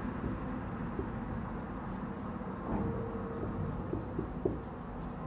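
A cricket chirping steadily as a faint high trill, with a few soft squeaks and taps from a marker writing on a whiteboard in the middle.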